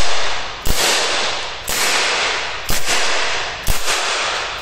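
Umarex .50-calibre CO2 air pistol firing hard rubber balls: four sharp shots about a second apart, each followed by a long echoing decay in a metal-walled shop.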